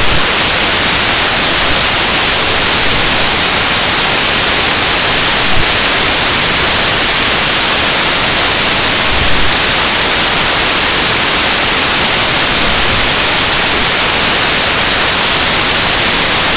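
Loud, steady white-noise static hiss, heaviest in the treble, with two brief slight swells, a little over five seconds in and about nine seconds in.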